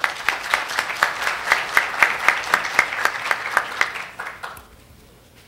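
Audience applauding, many hands clapping, dying away after about four and a half seconds.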